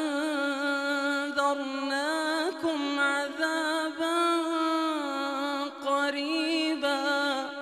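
Male Quran reciter chanting in long, ornamented melodic phrases, holding drawn-out vowels while the pitch waves up and down, with a few brief breaks between phrases.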